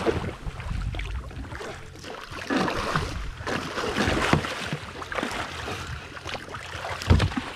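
Water slapping and sloshing against the hull of a small fishing boat, with wind buffeting and scattered knocks. A heavier thump comes near the end.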